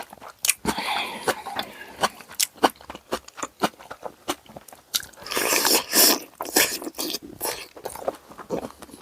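Close-miked eating of tonkotsu ramen and karaage: steady chewing with many wet mouth clicks, broken by two longer rushing sounds, about half a second in and about five seconds in.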